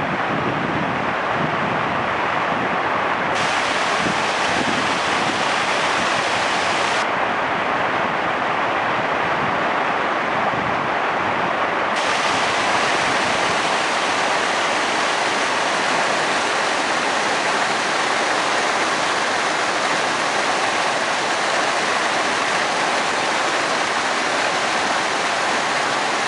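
Steady, even rush of moving water.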